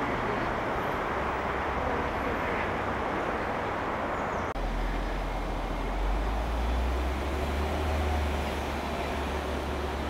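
Steady rumble and hiss of distant road traffic. About halfway through, a deeper low hum takes over.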